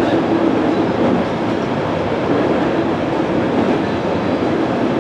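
JR electric train running along the track: a steady rumble of wheels on rails, heard from inside the front cab.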